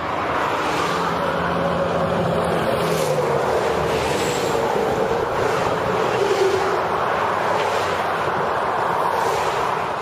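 Steady, loud rushing of wind and highway road noise, with a faint low drone running under it.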